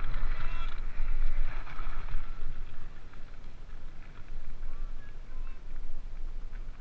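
Mountain cart rolling down a gravel track: a rumble of its wheels on the gravel mixed with wind, muffled by a waterproof camera housing. It gets quieter about three seconds in.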